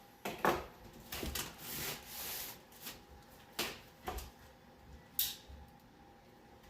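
Cardboard shipping box and packaging being handled and opened: a string of knocks, taps and clicks with some scraping and rubbing in between.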